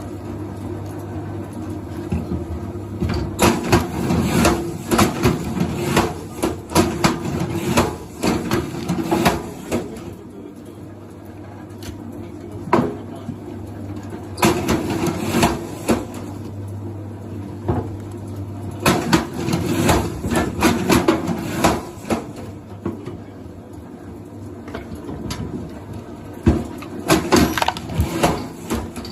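Repeated bursts of rapid knocking and clattering, several seconds each, over a steady low hum.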